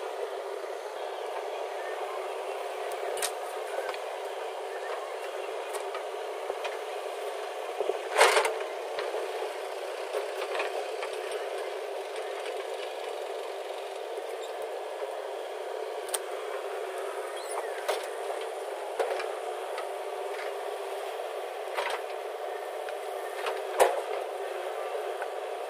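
JCB 3DX backhoe loader's diesel engine running steadily while loading mud into a dump truck, with occasional sharp metal clanks and rattles. The loudest clank comes about eight seconds in, and another strong one comes near the end.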